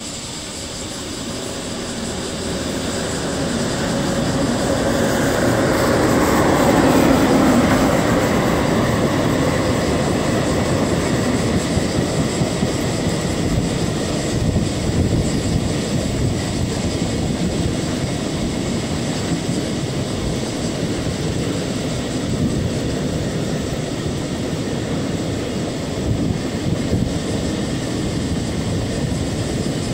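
Freight train of mostly empty container flat wagons rolling past, a steady rumble of wheels on rail that builds over the first several seconds and then holds.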